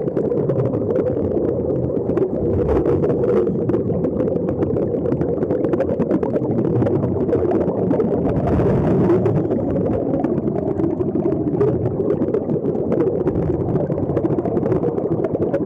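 Steady muffled underwater rumble heard through a submerged camera, with air bubbles from the sea-walk diving helmets ticking and crackling over it.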